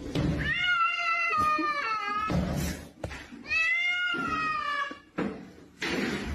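A cat meowing: two long, drawn-out meows, each sagging slightly in pitch at the end, with a short breathy sound after each.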